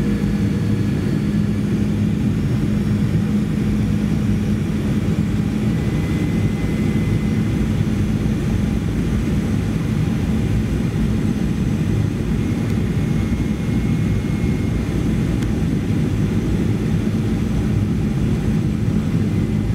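Cabin noise inside a Boeing 737-400 on approach, its CFM56-3C1 turbofan engines and the rushing air giving a steady drone with a low, even hum.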